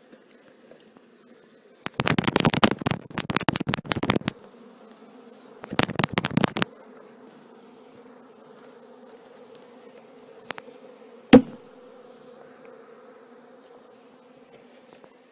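Honeybees humming steadily around an opened hive, with two bursts of rapid wooden knocking and rattling about two and six seconds in as a wooden hive box is shaken and jarred to dislodge the bees, and one sharp knock later on.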